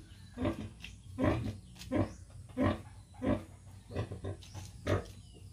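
Sow grunting in a steady rhythm, about one short low grunt every two-thirds of a second, while lying in a farrowing crate during farrowing.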